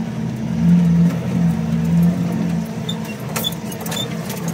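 Turbocharged Hemi V8 of a Ford F100 pickup running, its note swelling and easing. Light clinks and rattles come about three to four seconds in.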